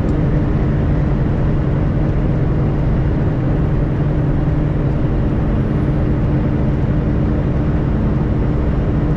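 Steady drone of a semi truck's diesel engine and road noise, heard from inside the cab while cruising on the highway, with a constant low hum.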